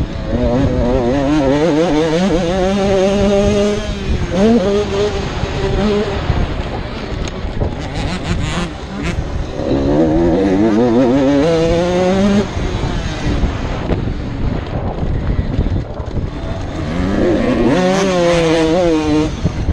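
85cc two-stroke motocross bike engine revving hard under racing throttle, its pitch climbing in three long runs with drops between as the throttle is rolled off.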